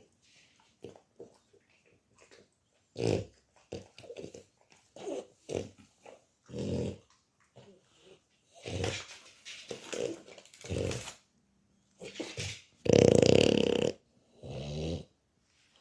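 A dog vocalizing in a string of short grumbling sounds, with one loud, longer outburst about thirteen seconds in and a shorter one just after.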